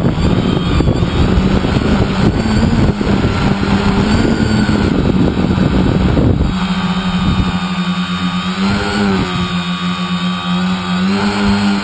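Tricopter's three brushless 2210N 1000kv motors with 9047 props whining, heard from the onboard GoPro, with heavy wind buffeting on the microphone. About six and a half seconds in, the wind noise cuts off suddenly, leaving a steady motor whine that dips and rises in pitch as the throttle changes.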